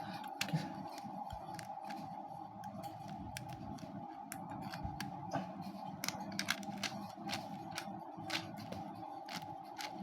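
Light plastic clicks and taps, irregular and scattered throughout, as the parts of a budget Beyblade spinning top are handled and fitted together, over a steady low hum.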